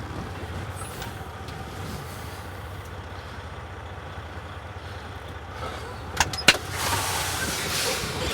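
Semi truck's diesel engine idling steadily. Near the end come two sharp clicks, then a burst of hissing air.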